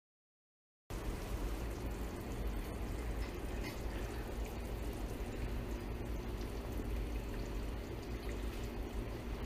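Vegetable broth in a steel pot bubbling as it comes to the boil, over a steady low hum; the sound starts abruptly about a second in.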